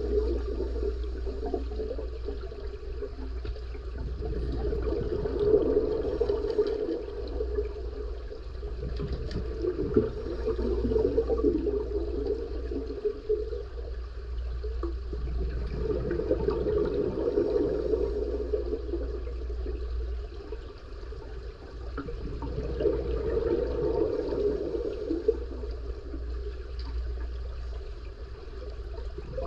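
Scuba diver's exhaled bubbles from a regulator underwater: a burst of bubbling about every six or seven seconds as the diver breathes out, over a steady low hum.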